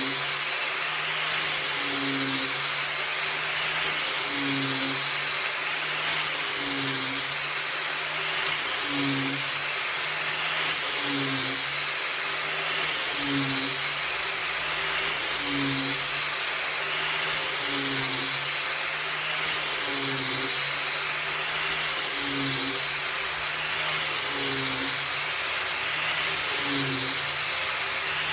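Angle grinder mounted in an All American Sharpener, grinding the edge of a lawn mower blade. The motor runs steadily while the grinding noise swells and fades about every two seconds as the wheel is swept back and forth along the blade's edge.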